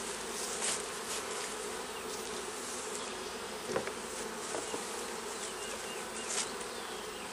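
A honeybee colony buzzing steadily in an open hive, a continuous hum with a few faint clicks scattered through it.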